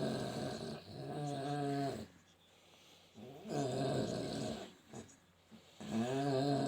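A sleeping dog snoring loudly, a drawn-out snore on each breath. Three snores, about two and a half seconds apart.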